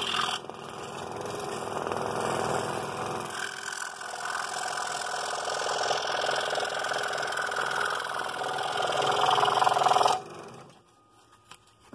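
Scroll saw running, its reciprocating blade cutting through thin wood as the piece is steered around sharp turns; the sound stops abruptly about ten seconds in.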